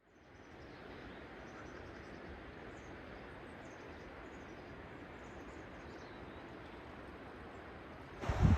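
Steady outdoor background hiss with faint, high bird chirps through the first several seconds. Near the end a sudden, louder rush comes in, with low wind rumble on the microphone.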